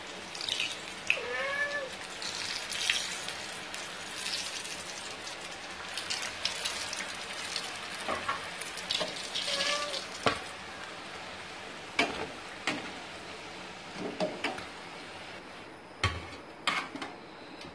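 Puris deep-frying in a steel kadhai of hot oil, a steady sizzle, with sharp clinks of a perforated steel skimmer against the pan. A cat meows twice, about a second in and again near the middle.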